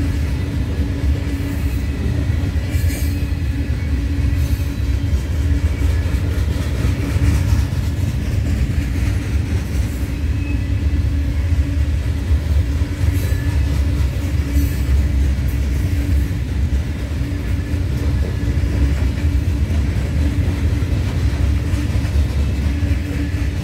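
Herzog ballast cars of a freight train rolling past: a steady rumble of steel wheels on the rails, with a constant hum and scattered clicks.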